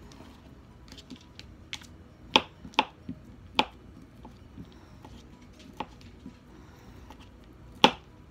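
Kitchen knife chopping through a stack of cheese slices, the blade knocking on a plastic cutting board in irregular taps, with a few louder knocks between about two and four seconds in and one near the end.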